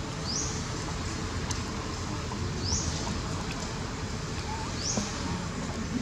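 A bird's short, high chirp rising quickly in pitch, repeated about every two seconds over steady low background noise.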